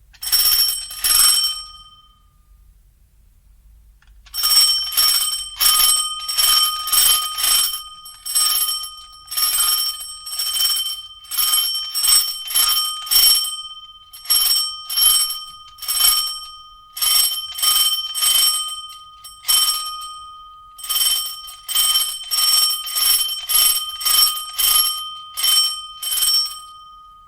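Mechanical bell rung in quick runs of sharp metallic strikes: a short run at the start, a pause of about three seconds, then repeated bursts of rapid rings, each with a bright lingering tone, the last ring fading out at the end.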